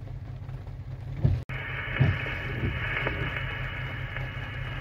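Steady low rumble of a diesel locomotive engine heard inside the cab, with a few soft thumps. About a second and a half in, after a brief dropout, the cab radio's open-channel hiss comes in.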